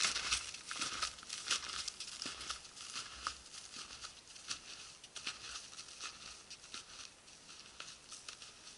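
Snowshoe footsteps crunching in snow, a quick run of crisp steps that grows fainter as the walker moves away.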